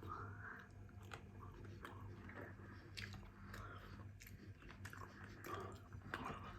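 Faint close-up chewing and biting sounds, with scattered soft clicks and wet mouth smacks.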